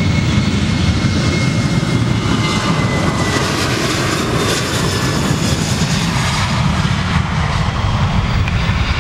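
Boeing 737-800's twin CFM56-7B turbofans at takeoff thrust as the jet accelerates down the runway: a loud, steady jet roar with deep rumble, and a high fan whine that fades out in the first few seconds.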